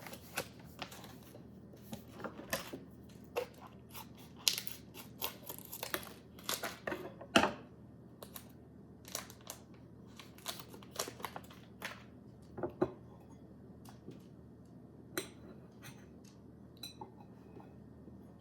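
Plastic snack packaging being handled and opened: a run of sharp crinkles, crackles and tearing sounds, dense for the first half and thinning to scattered clicks later.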